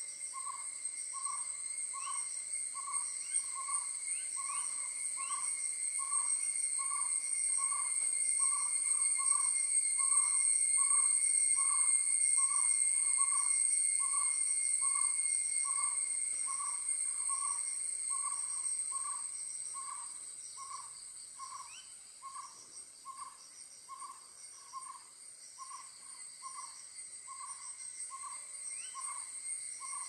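Jungle owlet giving a long, even series of short hoots. Behind it is a steady high insect drone that swells in the middle and fades about two-thirds of the way through.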